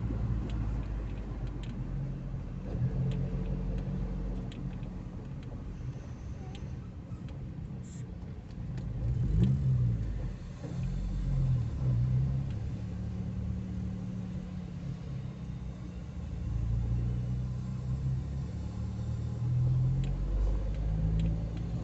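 Car engine and road noise heard from inside the cabin while driving. The engine's pitch rises and falls a few times about halfway through as the car speeds up and slows, loudest about nine seconds in.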